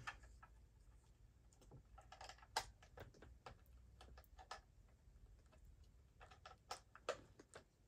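Faint, irregular clicks and taps of hands handling a plastic toy while working at its battery compartment.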